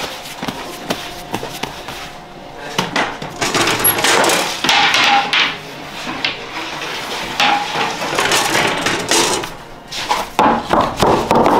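Irregular knocks and scraping of a baker's tools, wood and metal, on a wooden workbench and at the mouth of a wood-fired bread oven.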